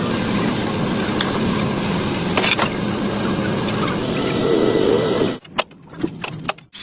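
Steady mechanical running noise that cuts off suddenly about five seconds in, followed by a few sharp clicks.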